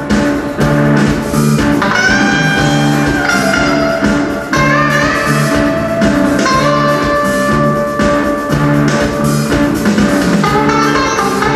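Live band playing an instrumental rock piece: a guitar lead with gliding notes over a repeating bass line and drum kit.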